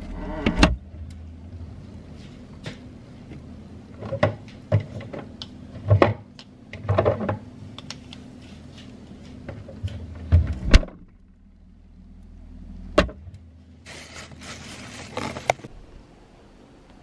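Kitchen handling sounds at a refrigerator: its door and items being taken from the door shelves, a string of sharp knocks and clinks over a low steady hum, one more knock a little later, and a brief rustle near the end.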